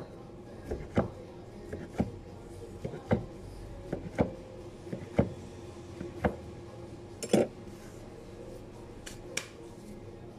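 A knife slicing through maki sushi rolls, each cut ending in a sharp knock of the blade on the cutting board, about one cut a second. The cuts stop after about seven seconds.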